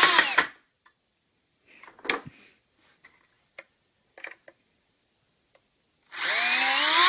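Cordless drill on an ice-auger conversion kit triggered briefly, its motor whining up in pitch for half a second, then a few light handling knocks. About six seconds in the drill spins the auger up again, the whine rising and then holding steady.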